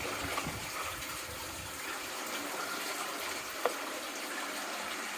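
Water running steadily, with a single sharp click about two-thirds of the way through.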